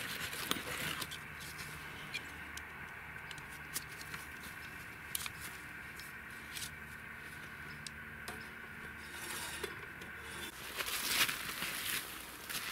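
Faint, scattered scrapes and small clicks of a knife working a thin strip of wood, with a louder stretch of rustling and crunching near the end.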